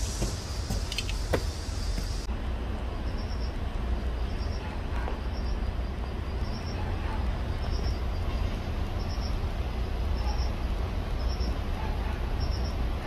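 Steady low outdoor rumble, with a faint short high chirp repeating about once a second from a couple of seconds in.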